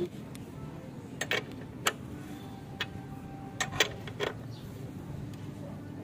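Combination wrench working the Yamaha R15's rear brake caliper mounting bolts as the caliper is tightened back on: a scatter of about seven sharp clicks between about one and four seconds in.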